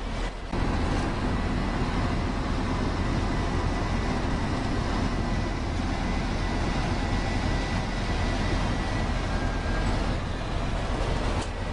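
Steady running noise of a moving road vehicle: a dense low rumble with a faint thin whine above it, getting louder about half a second in and then holding even.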